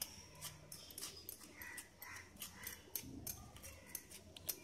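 Table knife scraping over crisp toasted sandwich bread on a ceramic plate while spreading butter: faint scrapes and light clicks, several a second.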